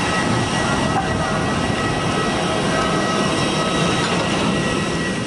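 Jet airliner turbine noise: a steady high whine over a loud, even rush.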